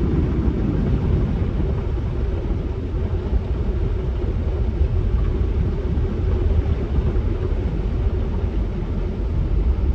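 Car driving slowly through deep standing floodwater, heard from inside the cabin: a steady low rumble with a rushing hiss of water and tyres.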